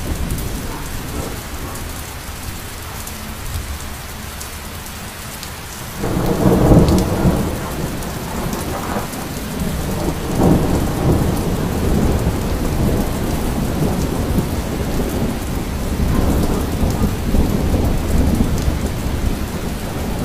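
Thunderstorm: steady rain with thunder. A loud roll of thunder breaks in about six seconds in and keeps rumbling in swells, with further peaks around ten and sixteen seconds.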